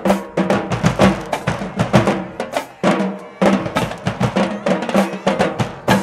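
Marching band drumline playing a fast, driving cadence on snare and bass drums, with steady low notes from the band held underneath in stretches.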